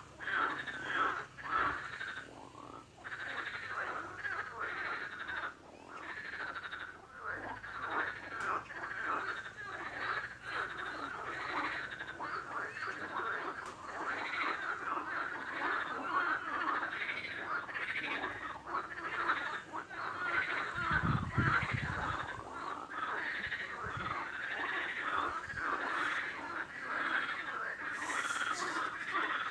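A chorus of frogs calling, many rapid overlapping croaks that run on without a break. There is a brief low rumble about two-thirds of the way through.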